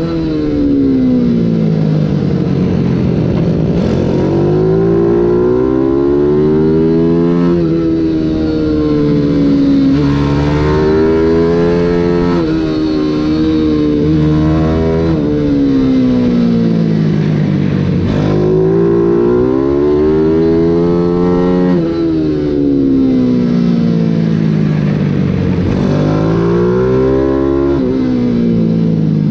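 140 cc Mini GP race bike engine at racing speed, heard onboard. The pitch repeatedly climbs under acceleration with short drops at gear changes, then falls away on braking, over a steady rush of wind.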